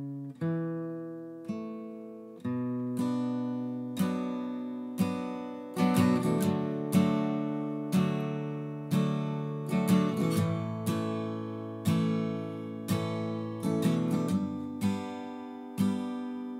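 Solo acoustic guitar strumming chords about once a second, each left to ring and fade, with quicker strums in places.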